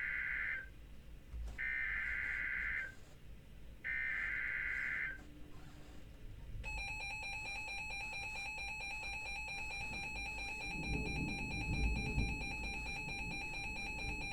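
Emergency Alert System SAME header: the end of one burst of screechy digital data tones, then two more bursts of about a second each. After a pause of about a second and a half, a steady, piercing EAS attention tone begins and runs on.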